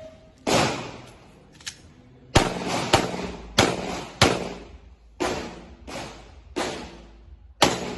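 A string of nine 9mm pistol shots from a stock Glock: one shot, a pause of about two seconds, then eight more spaced roughly half a second to a second apart, each trailing off briefly.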